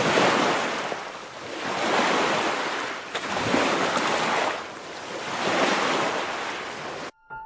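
Rushing noise sound effect in four slow swells, like breaking surf, cutting off suddenly near the end.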